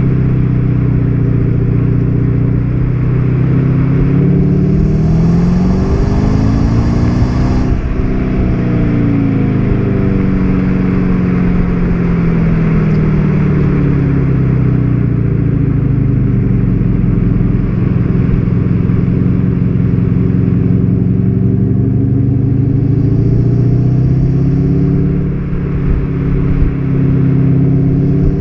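VW Golf 7 GTD's 2.0-litre four-cylinder turbodiesel accelerating, its pitch climbing to a peak about eight seconds in, with a high hiss over the last few seconds of the climb. The revs then fall away and hold steady. Revs climb again near the end, with a brief dip like a gear change.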